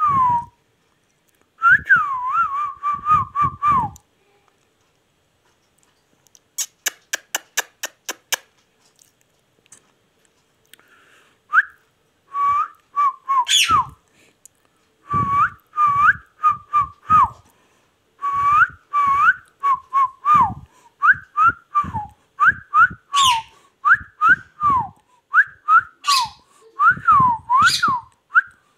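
Indian ringneck parakeet giving short whistled notes that swoop up and down, with clicks between them. There is a quiet stretch from about four seconds in, broken by a quick run of sharp ticks, before the whistling picks up again and keeps coming more densely.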